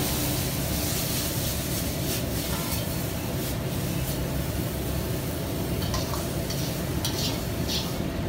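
Shredded potatoes sizzling in a carbon-steel wok over a commercial wok burner's steady rush, as the wok is tossed and stirred, with a few short clinks of the metal ladle against the wok.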